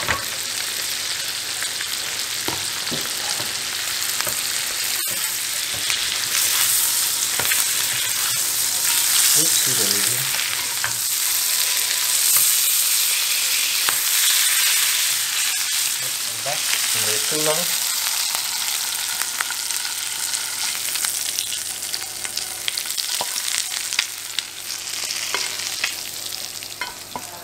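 Smoked snook sizzling as it fries in melted butter with garlic and chili in a frying pan, a spatula moving in the pan. The sizzle is steady and loudest in the middle, easing off near the end.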